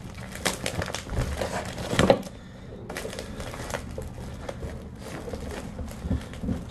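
Packing material rustling and crinkling as a car door kit is pulled out of its box, with irregular small knocks and clicks, loudest about two seconds in.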